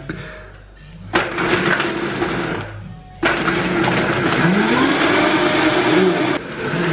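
Countertop blender run in pulses, blending nuts and fruit into a shake: a burst of about a second and a half, a short pause, then a longer run of about three seconds, starting again near the end.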